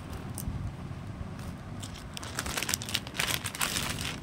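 Clear polythene bag crinkling and rustling as a folded cloth top is pushed into it. The crinkling grows louder and denser from about halfway through, over a low steady background hum.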